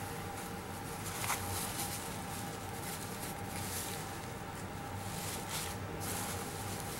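Hands rustling over a macaw's feathers, the tape sling and a towel, with a sharp tick about a second in and a steady faint tone underneath.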